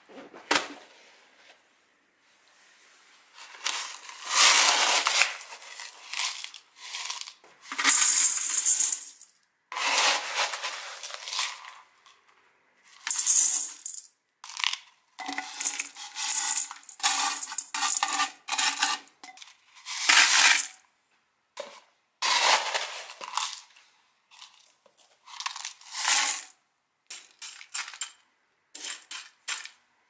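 Small gravel being poured into a glass bowl: the stones rattle against the glass and against each other in a dozen or so pours, each lasting under a second to a few seconds, with short silent gaps between them.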